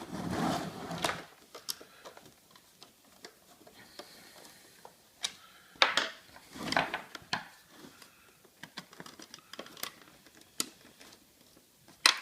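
Scattered sharp clicks and short rattles of a plastic coin mechanism being handled as its dispenser screws are undone, with a louder burst of handling near the start and another about six seconds in.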